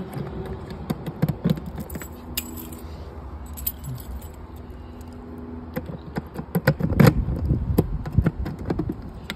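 Keys jangling and rattling as an RV compartment key is fitted and turned in the lock of a travel trailer's fresh-water fill hatch. The clicks and rattles come thickest about seven seconds in.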